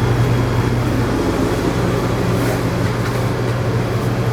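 Electric dog grooming clippers running with a steady, even hum while trimming a dog's face and matted ears.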